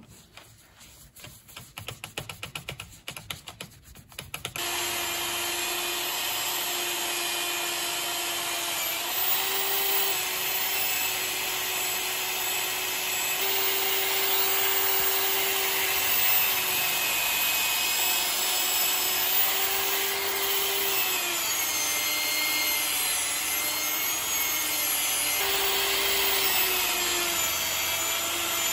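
A hand rubs polishing compound onto a wool buffing pad with quick, uneven strokes. About four and a half seconds in, a power tool spins the pad up and runs steadily. Its pitch steps up and down a few times as a steel pipe wrench is pressed against the spinning pad to polish it.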